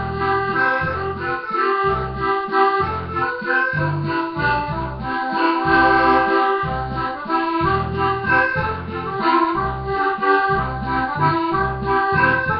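Piano accordion playing a Scottish tune: a sustained treble melody over a steady, pulsing bass-and-chord accompaniment.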